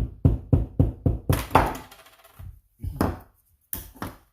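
A quick run of hard knocks on Hayward Super Pump parts, about four a second, then a rougher scraping stretch and a few more knocks near the end, as a stuck part is knocked loose.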